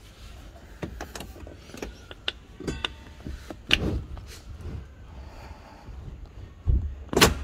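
Clicks and knocks from a folded third-row seat of a Toyota Alphard/Vellfire 20 series being shifted along its floor rail, with a quick rattle of ratchet-like ticks a little under three seconds in and a heavy clunk near the end.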